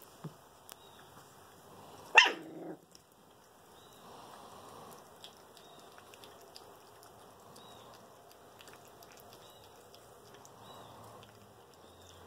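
A puppy gives one sharp bark about two seconds in, then faint sounds of puppies eating from a can of food.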